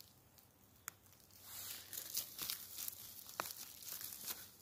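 Rustling and crackling of forest-floor vegetation and twigs, with two sharp snaps: one about a second in and one near the end.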